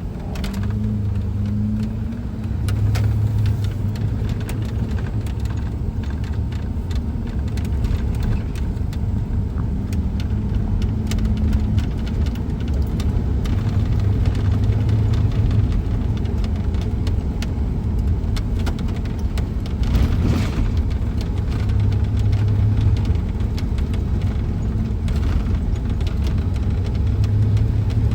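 Car driving: steady low engine and road rumble heard from inside the vehicle, with a few light clicks and knocks.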